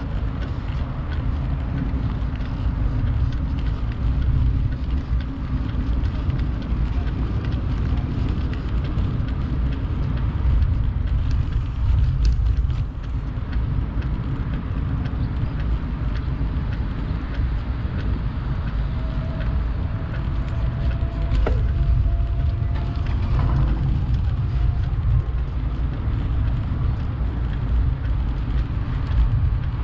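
Steady low rumble of wind buffeting the microphone and road noise from a bicycle being ridden, with a few faint clicks.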